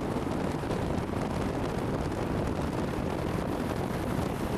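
Steady rush of vehicle noise at highway speed, recorded from a moving car with motorcycles riding alongside: road and wind noise with the bikes' engines mixed in, with no single engine standing out.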